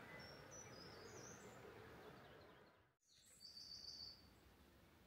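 Faint songbird chirping over quiet outdoor hiss: a few high, thin phrases in the first two seconds, a brief drop to silence about three seconds in, then a louder high trilled phrase lasting under a second.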